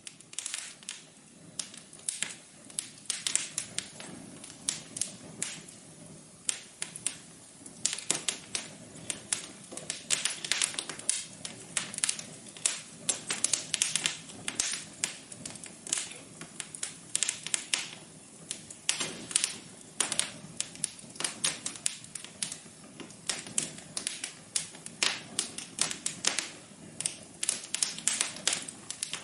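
Wood fire crackling in a fireplace: a steady low hiss with dense, irregular snaps and pops.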